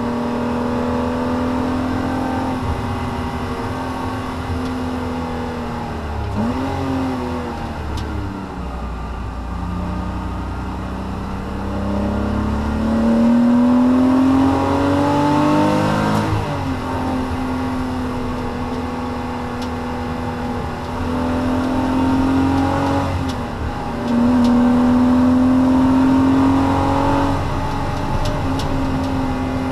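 Porsche Cayman S 987 mk2's 3.4-litre flat-six heard from inside the cabin under track driving. The revs hold steady, drop around six seconds in, then climb slowly for several seconds and fall sharply, and climb again near the end, over tyre and road noise.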